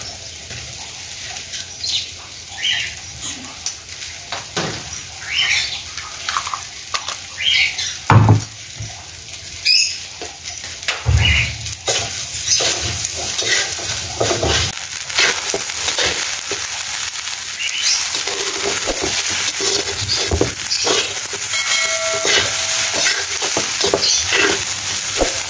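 Fried rice being stir-fried in a steel wok: a metal spatula scrapes and knocks against the pan, with a few louder knocks in the first half, over a sizzling hiss that grows steadier from about halfway.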